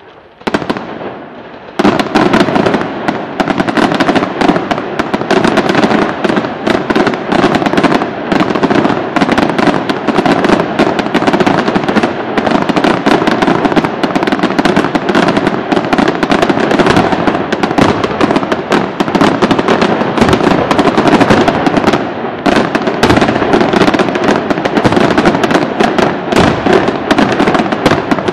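Aerial fireworks shells bursting in a dense, continuous barrage of overlapping bangs and crackle, which starts in earnest about two seconds in after a brief quieter moment.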